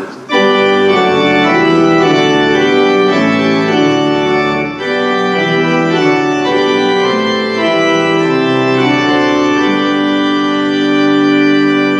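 Church organ playing a hymn tune in full sustained chords, coming in suddenly just after the start.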